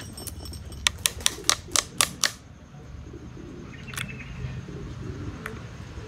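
A quick run of about eight sharp clicks in a second and a half, then a couple of lone clicks, as the plastic suction muffler is worked loose from the opened refrigerator compressor's cylinder head.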